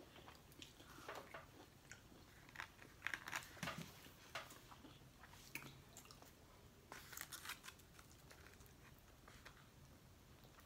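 Faint eating sounds: chewing, with scattered small clicks and scrapes of plastic forks in foam take-out containers.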